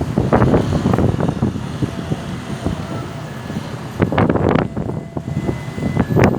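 Road traffic noise with wind buffeting the microphone in irregular gusts, loudest near the start and again about four seconds in.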